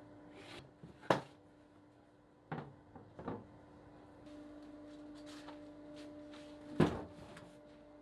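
Sharp knocks and clacks of a plastic holding-tank lid and its fittings being handled and set down on a workbench, four in all, over a steady low hum.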